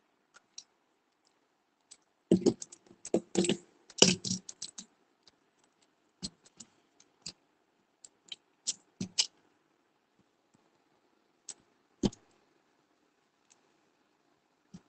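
Irregular light clicks and taps from handling a phone, pen and textbook page: a busy cluster a couple of seconds in, then a few scattered single clicks.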